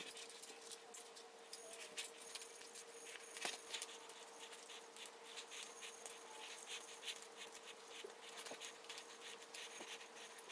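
Faint, quick small clicks and scrapes of a screwdriver and needle-nose pliers prying at a small transformer's metal frame, over a steady faint hum.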